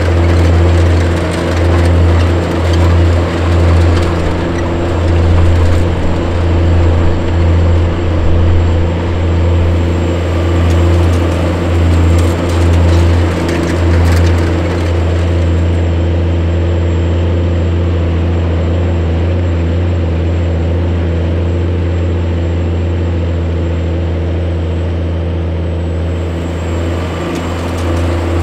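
Case IH 535 HD Steiger articulated four-wheel-drive tractor's diesel engine running steadily under load while pulling a vertical tillage tool. The engine note swells and dips gently through the first half, then holds steady.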